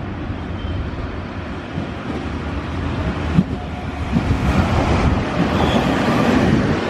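Electric train running into the station, a steady rumble that grows louder from about halfway through, with one sharp knock a little past three seconds in.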